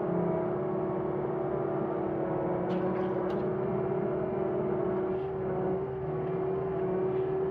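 John Deere 325G compact track loader running as it travels, heard from inside the cab: a steady engine hum with a constant tone over it, and a couple of sharp clicks about three seconds in.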